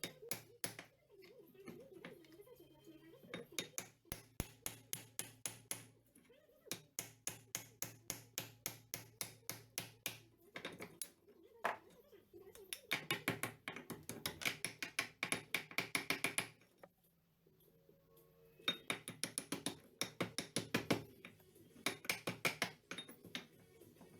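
Rapid runs of sharp hammer blows on metal, about five a second, in bursts broken by short pauses.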